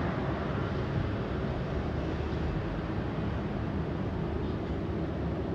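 Steady low mechanical rumble of a truck-mounted aerial lift running, even in level throughout.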